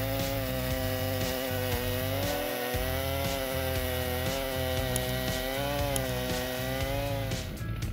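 Large Stihl chainsaw running at full throttle, cutting through a big oak log. The engine note wavers slightly as the chain loads up in the wood, and it drops away near the end.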